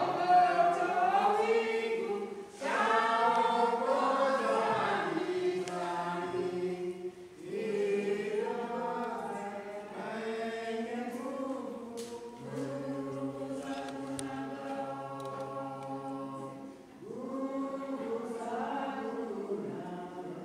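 A congregation singing a hymn together in slow phrases of long held notes, with a short break every four to five seconds.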